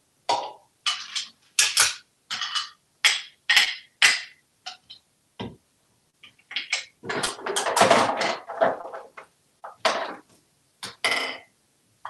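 Small plastic toys and cups being set down one after another on a hard bathroom countertop, a string of sharp clacks and knocks, with a longer stretch of rattling and clattering around the middle as they are handled together.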